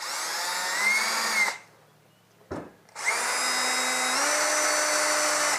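Power drill spinning a motorcycle speedometer's drive input to test it. It runs in two goes: first a short whine that climbs in speed and stops about a second and a half in, then a click, then a longer steady run from about three seconds in that steps up in speed near the end.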